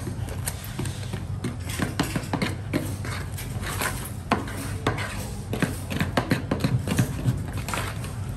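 A bare hand stirring and squeezing a thick white powdery mix in a plastic bucket: irregular wet slaps and scrapes, several a second, over a steady low hum.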